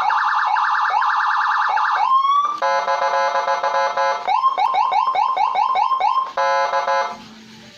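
Electronic multi-tone siren unit cycling through its sounds: a fast repeating yelp, a single rising sweep, a steady harsh horn tone, a run of quick rising chirps about four a second, then the horn tone again before it cuts off about seven seconds in.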